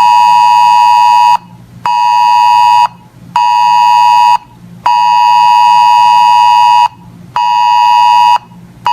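Weather radio alert beeper sounding a buzzy electronic tone near 1 kHz in a long-short-short rhythm: a beep of about two seconds, then two one-second beeps, repeated. It signals that a new alert is coming in.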